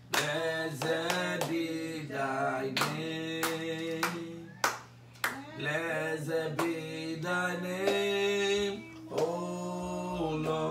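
A man singing a slow worship song solo and unaccompanied, holding long notes, with sharp hand claps scattered through it.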